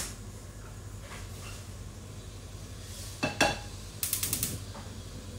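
Metal cookware handled on a gas hob: two sharp knocks of a pot with a brief metallic ring a little after three seconds in, then a quick run of about six clicks, over a low steady hum.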